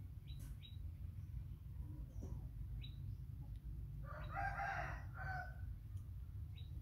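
A rooster crowing once, about four seconds in, a call of about a second and a half, over a steady low background rumble with a few faint short chirps.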